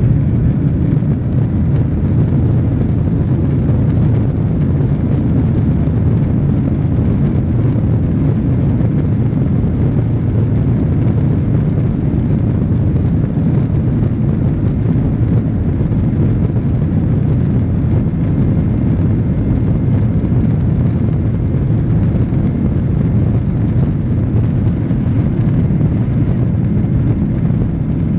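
Steady, loud low rumble inside the cabin of a Boeing 737-800: its CFM56 jet engines and the rushing airflow heard through the fuselage, with no change in pitch or level.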